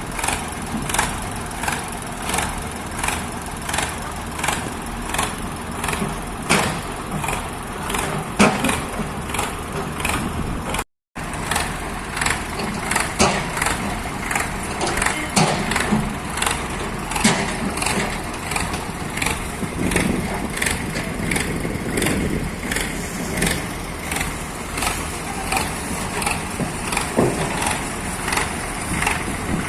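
Piling rig at work: an engine running steadily under regular knocks, about two a second.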